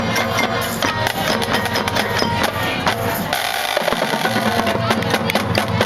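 High school marching band playing its field show: winds over the drumline's drums and the front ensemble's percussion.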